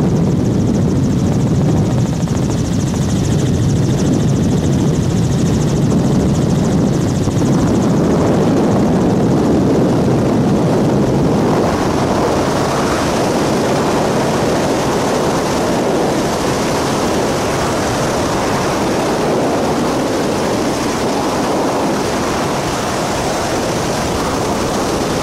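Helicopter rotor and engine noise heard from aboard: a loud, steady drone with a fast pulsing beat.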